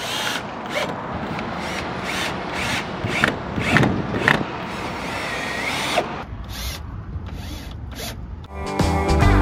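Cordless drill driving screws through a mural panel into a building wall, running in short repeated bursts. Music comes in near the end.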